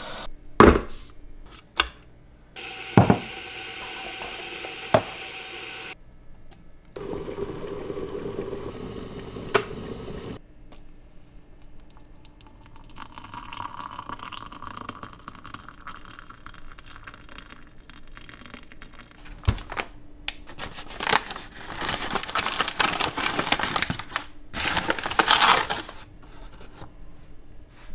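Kitchen tea-making sounds: a few knocks and clicks, then water running from a tap into a stainless-steel kettle, hot water poured from the kettle into a mug over a tea bag, and near the end the loudest part, a paper sugar bag crinkling as it is handled.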